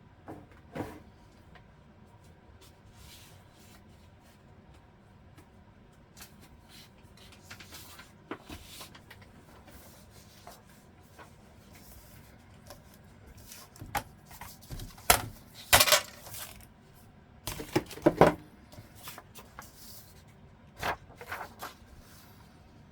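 Paper rustling and small craft items knocking and being set down on a work table, in scattered bursts that come loudest and thickest about two-thirds of the way through.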